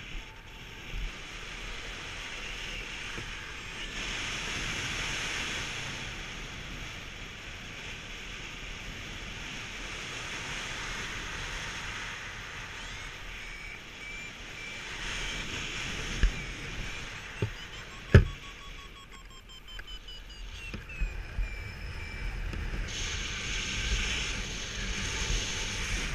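Airflow rushing over the camera microphone in paraglider flight, with a variometer beeping in a dotted tone that slides up and down in pitch. A couple of sharp knocks come about 16 and 18 seconds in.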